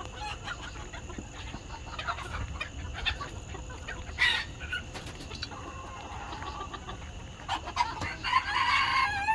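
Chickens clucking in a coop, with many short calls throughout and a louder call about four seconds in. Near the end a rooster starts a long crow.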